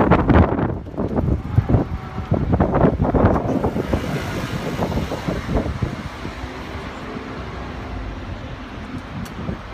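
Road traffic: cars running past. Wind buffets the microphone in gusts for the first three seconds or so, and after that the traffic settles into a steadier hum.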